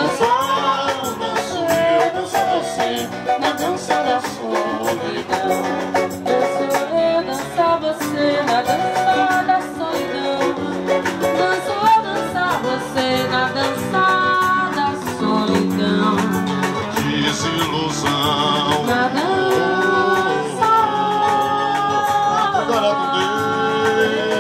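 Live samba group playing: nylon-string acoustic guitars and a cavaquinho strummed over steady percussion.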